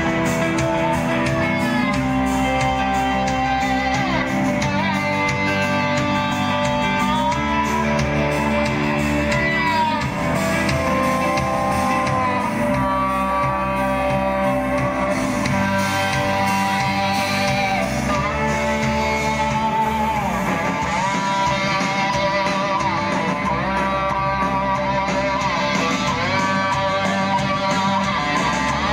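Rock band playing live: electric guitars over bass and drums.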